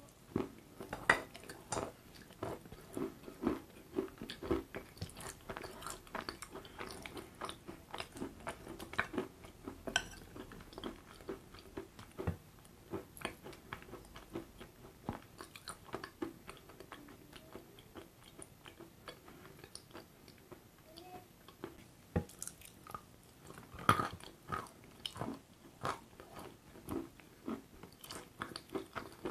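Close-miked eating sounds: a bite, then steady wet chewing with sticky smacking clicks and occasional crunches, the sharpest crunch about 24 seconds in.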